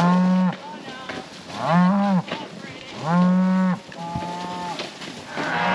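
Cattle bawling, several calls in a row, each under a second long and about a second apart, the fourth fainter.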